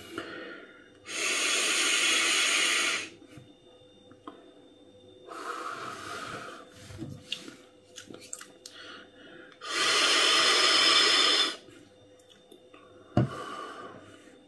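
Two long drags on a pod vape, each a steady airy hiss of about two seconds as air is drawn through the pod and its coil, with a softer breath between them. A short knock near the end.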